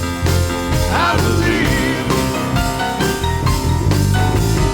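Fast, upbeat worship music from a praise band between sung lines, with a steady quick drum beat over bass and keys. A short sliding pitch is heard about a second in.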